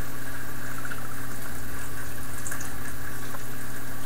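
Steady background noise: an even hiss with a constant low hum, unchanged throughout, with a couple of faint ticks.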